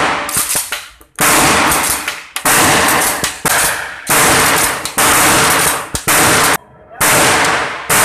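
Pump-action shotgun fired in a rapid string, about six loud shots roughly a second apart, each followed by a long echoing tail.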